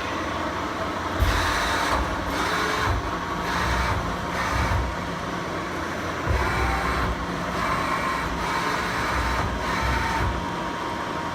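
A steady low hum from the powered-up Takisawa TC-4 CNC lathe. From about a second in, irregular rustling and low thumps come in, as from a handheld camera being carried around the machine.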